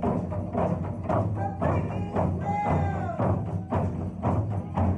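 Live worship music: drums struck in a steady, even beat, with singing over it.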